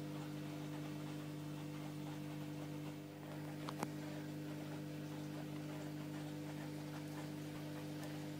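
A steady low electrical-sounding hum, unchanging throughout, with two soft clicks close together a little before the middle.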